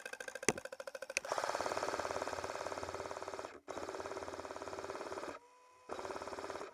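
Airsoft M249 SAW light machine gun firing on full auto as a fast mechanical rattle. A long burst starts about a second in, followed by further bursts with brief pauses between them near the end. A couple of sharp single cracks come just before the first long burst.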